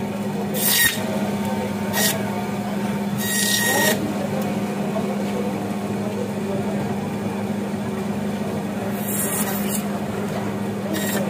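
Electric fish-cutting band saw running with a steady hum, its blade rasping through a silver carp's body and backbone in short cuts. There are three cuts in the first four seconds, the third the longest, then two more near the end.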